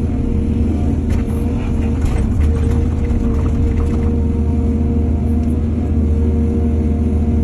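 Excavator's diesel engine running steadily with a low rumble, with a spell of rattling and clatter from about one to four seconds in.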